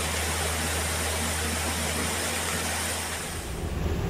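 Heavy machine's engine running steadily, heard from inside its cab, over the hiss of rushing flood water. Near the end the sound changes to a louder, rougher rushing noise.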